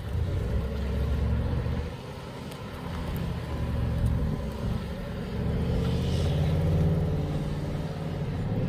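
Audi RS 6 Avant's twin-turbo V8 exhaust as the car drives around, a low engine note that swells and eases several times.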